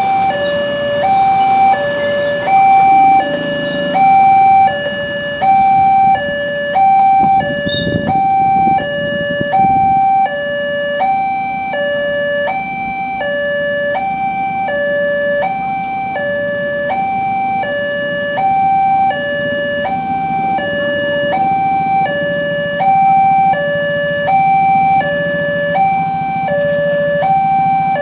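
Railroad level-crossing warning alarm sounding an electronic two-tone signal. It alternates a higher and a lower tone evenly, about one pair every second and a half, warning that a train is coming and the crossing barrier is closing.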